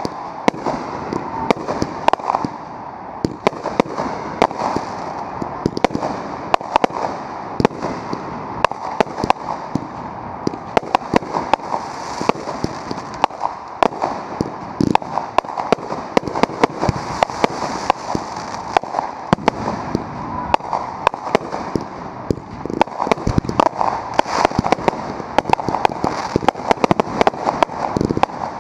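Aerial fireworks going off in quick succession: a dense run of sharp bangs and pops over a continuous crackle and hiss.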